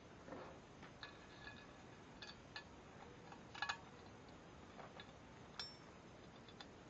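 Faint, scattered metallic clicks and clinks of steel rods being handled against a stamped sheet-metal bracket, the loudest a quick double click about halfway through.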